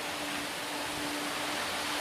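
Dash 8 Q400 twin turboprop landing, heard at a distance: a steady rushing hiss with a faint steady hum from the engines and propellers, slowly growing louder as the airliner touches down.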